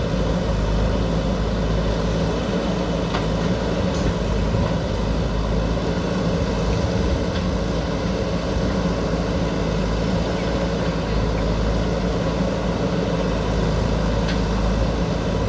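Diesel engine of a JCB backhoe loader running steadily at working revs, with a few faint clicks over it.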